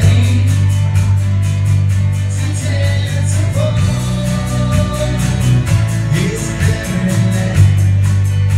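Live worship band playing a song: electric guitar and singing over heavy low bass notes and a quick, steady beat.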